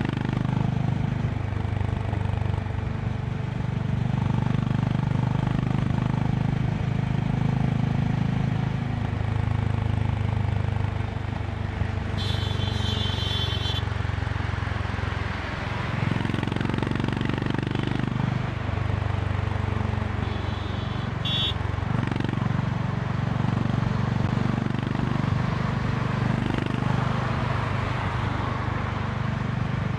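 Honda CB350 RS's 348 cc air-cooled single-cylinder engine running at highway speed, with wind rushing past; the engine note dips and picks up again a few times in the second half. Two short high-pitched tones sound, one near the middle and a briefer one later.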